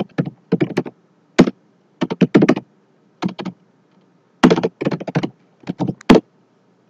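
Typing on a computer keyboard: short runs of keystrokes with brief pauses between them, as a short Chinese phrase is entered through an input method.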